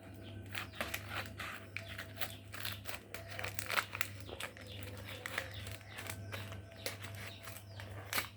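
Toy packaging crinkling and rustling as it is unwrapped by hand, in quick irregular crackles.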